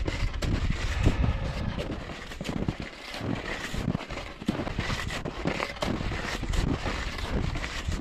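Wide hunting skis crunching and scraping on a packed snowmobile track in a run of irregular strides, over a low wind rumble on the microphone.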